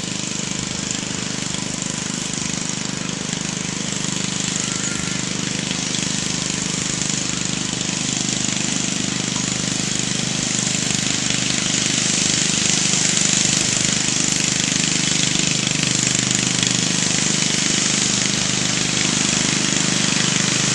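Small engine of a riding lawn mower running steadily as it drives across a field towing a small cart, growing gradually louder as it comes closer.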